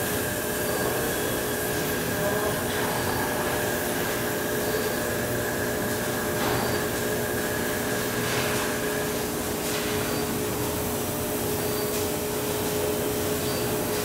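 Oxy-fuel gas welding torch flame hissing steadily as it heats a steel pipe joint being brazed with brass filler rod.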